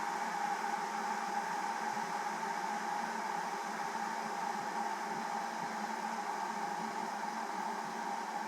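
Electric kettle heating water: a steady rushing hiss, brightest in the middle of the range, as the water works up towards the boil.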